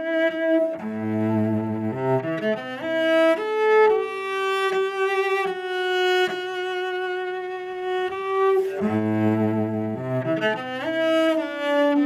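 Solo cello playing a slow melody, often sounding two notes at once. A long note is held with vibrato in the middle, and deep low notes come in near the start and again near the end.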